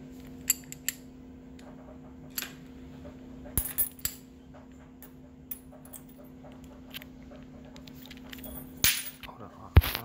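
Scattered sharp metallic clicks and clinks of a Master Lock 570 padlock being handled with its shackle open, some in quick pairs, with a louder knock near the end.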